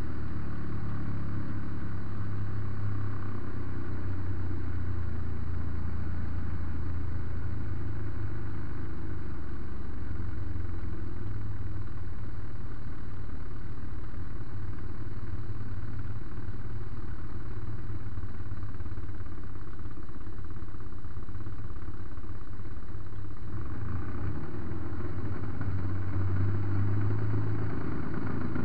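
MVVS 116 two-stroke petrol engine of a large RC Piper J-3 Cub tow plane running steadily in flight, heard from a camera on board with wind rushing past. Its note changes a few seconds before the end.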